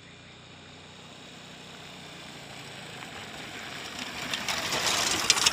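Motorcycle engine approaching across a dirt field, growing steadily louder, then a skidding turn close by near the end, with a rush of tyre and spraying-dirt noise and crackles.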